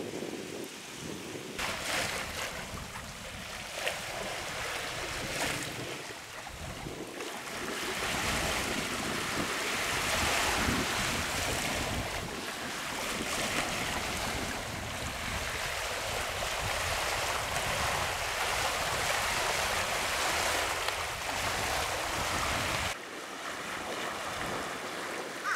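Wind buffeting the microphone over the wash of small waves lapping at a grassy shoreline. Near the end the wind rumble drops off sharply, leaving mostly the water.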